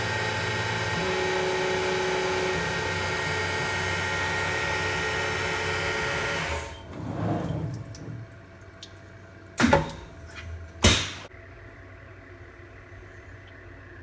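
Benchtop CNC mill (a converted Grizzly G0704) cutting an aluminium part under flood coolant: a steady spindle whine with the hiss of coolant spray, cutting off abruptly about seven seconds in as the cycle ends. A short swell of machine sound follows, then two sharp knocks about a second apart over a faint hum.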